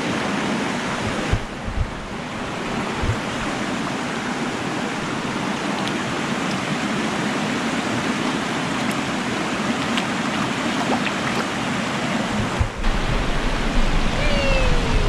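Steady rush of water falling and cascading over rocks at a mountain waterfall, with a few soft low knocks about two seconds in.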